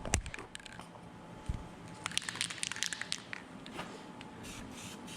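An aerosol can of green spray paint is handled with clicks and a quick rattle, then starts hissing in short bursts near the end as the paint is sprayed.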